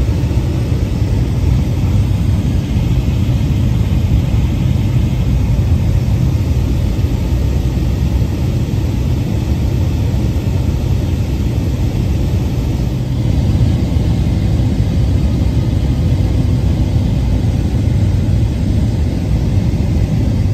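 Steady drone of a light aircraft's engine and propeller in flight, heard from inside the cabin.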